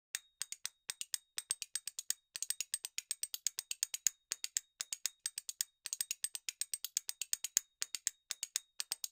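Chef's knife slicing quickly through a fennel bulb, each stroke clicking on the cutting board, about eight strokes a second in runs with brief pauses.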